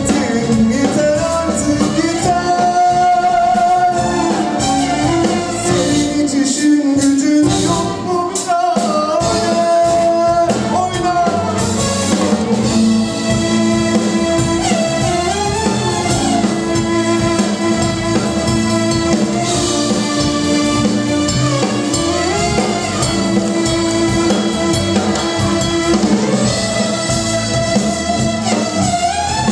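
Live band playing a Turkish pop song: violin, drum kit, bass guitar and keyboards, with a man singing in places.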